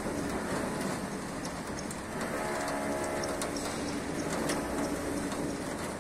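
Steady rain noise with a low, droning engine-like hum underneath, its pitch shifting around halfway through, and scattered light drop ticks.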